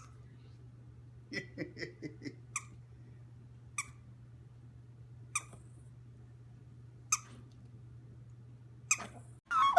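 A pet animal's short, sharp chirp-like squeaks: a quick run of five or six about a second and a half in, then single squeaks every second or two.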